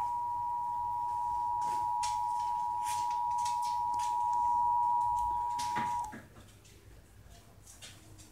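Emergency Alert System attention signal: two steady tones of 853 Hz and 960 Hz sounded together, cutting off abruptly about six seconds in. It announces that an alert message follows, here the national test.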